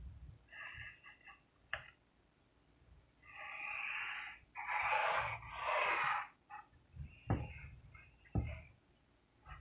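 Pencil scratching across paper in a few strokes of about a second each while sketching. Two light knocks on the wooden table come near the end.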